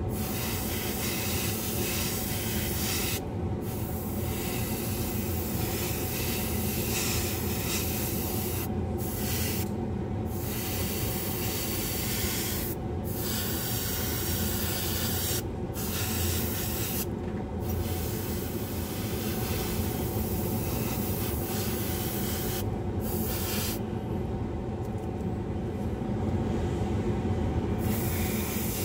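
Airbrush hissing in spurts as it sprays paint, the air cutting off briefly several times and for a longer pause near the end. Under it the spray booth's exhaust fan runs steadily.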